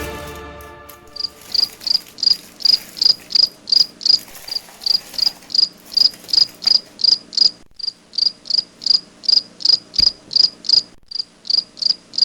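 Cricket chirping steadily, short high chirps about two to three a second, after background music fades out in the first second.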